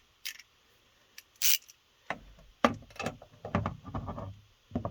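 Metal tool handling on a truck door: a few sharp clicks, then from about two seconds in a run of dull knocks and rattles as a socket on an extension is fitted to the door handle bolt and turned.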